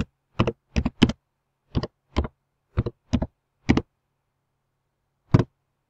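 Computer keyboard typing: about nine separate key clicks in an uneven rhythm over the first four seconds, then a single last click near the end.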